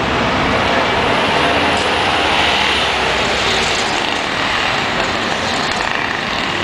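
Articulated city bus driving past, its engine and tyres making a steady, loud noise.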